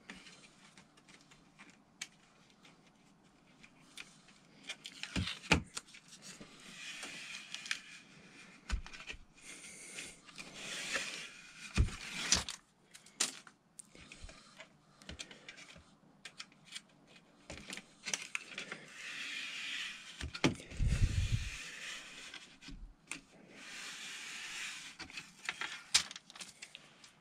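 Double-sided mounting tape being peeled by hand inside a light fixture: long crackling, tearing rustles in several pulls, broken by sharp clicks and a few dull knocks from the fixture being handled.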